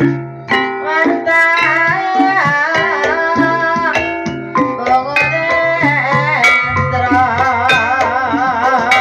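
Live ebeg accompaniment music: Javanese gamelan with hand-drum strokes under a wavering, vibrato-laden melodic line.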